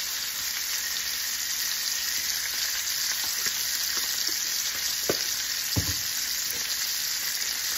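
Chicken thighs sizzling steadily in butter and olive oil in a frying pan, with two soft knocks about five and six seconds in.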